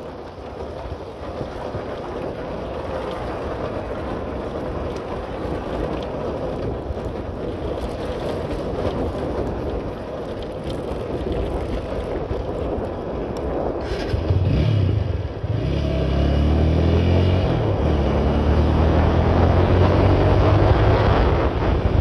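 Steady road noise growing louder, then about 14 seconds in a motor vehicle engine comes in and its pitch rises as it speeds up.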